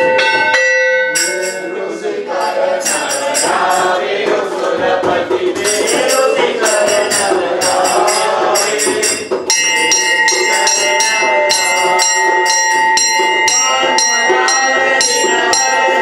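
Devotional aarti singing by a group of voices with rhythmic jingling percussion strokes, about two a second. Under it runs a sustained ringing tone that drops out about a second in and returns about nine and a half seconds in.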